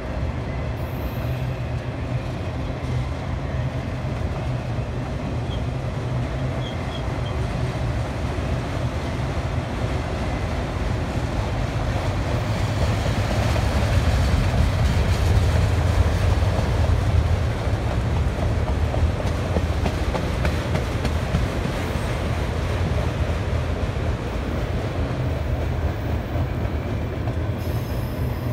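Autorack freight cars of a slow-moving train rolling past on the rails: a steady, low rolling noise of wheels on track, louder for a few seconds about halfway through.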